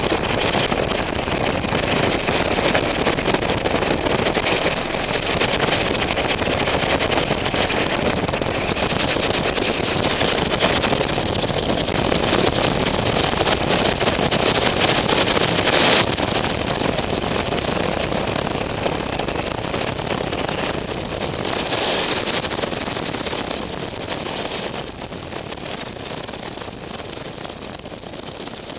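Strong wind, over 30 mph, rushing and buffeting the camera microphone in an unbroken noise. It swells in gusts and eases off over the last few seconds.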